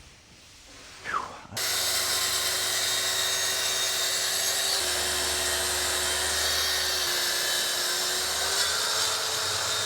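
A power tool switched on about a second and a half in, then running steadily with a constant high whine over a hiss.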